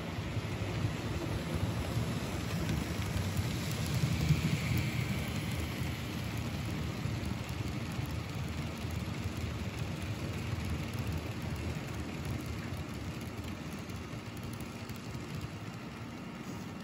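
N-scale model freight train rolling past on sectional track: the small wheels rattle over the rails. Loudest about four seconds in, slowly fading after that.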